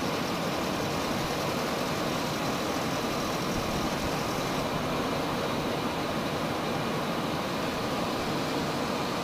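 Car engine idling steadily with the air conditioning compressor engaged, heard under the open hood.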